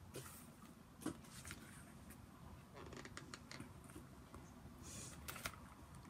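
Faint scattered clicks and rustles of popcorn being handled and eaten from a plastic bowl, with a sharper click about a second in and a few more near the end.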